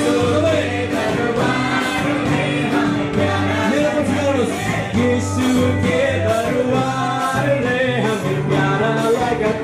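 Live worship band: women singing into microphones over electric and acoustic guitars and a steady bass line.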